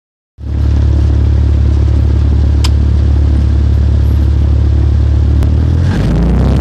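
Light aircraft's piston engine and propeller running steadily at low power, heard close by. It is a loud, steady low drone that cuts in a moment after the start, and its pitch shifts slightly near the end.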